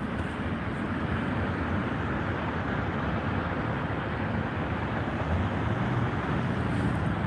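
Steady road-traffic noise, an even rumble and hiss of passing vehicles with no distinct events.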